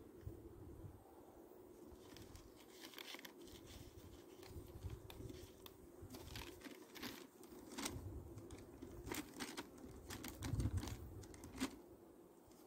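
Paper crinkling and rustling, with scattered light clicks, as the packet of an Apivar varroa treatment strip is handled and a sheet of newspaper is spread over the frames of a nucleus hive. Wind rumbles on the microphone now and then.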